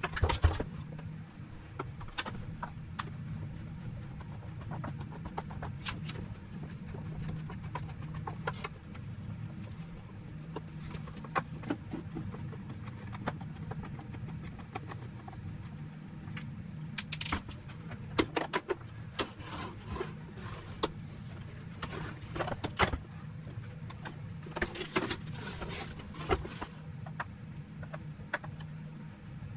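Scattered sharp clicks and knocks from hands working on a plastic vacuum cleaner as it is taken apart, coming in clusters, over a steady low hum.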